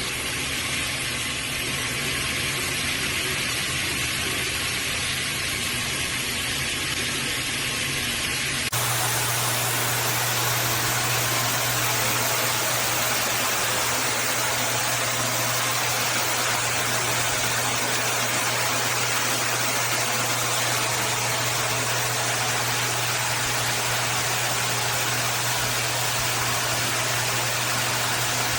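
Shower head spraying water, a steady hiss of falling water with a low hum underneath. The sound changes abruptly about nine seconds in, as the running shower is recorded anew.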